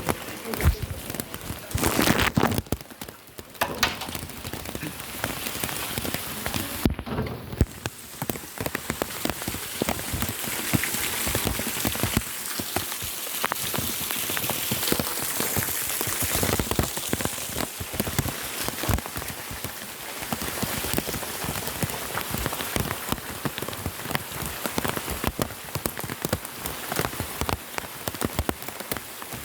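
Steady rain falling on surfaces: a dense hiss dotted with the ticks of individual drops, with a louder stretch about two seconds in.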